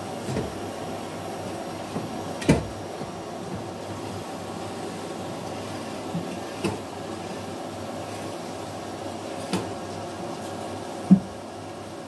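Steady low machine hum, with a few short knocks and bumps over it, the loudest near the end.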